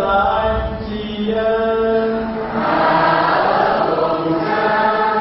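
A man's voice chanting a liturgical prayer in long, held sung notes: a Catholic bishop intoning a prayer at the altar microphone.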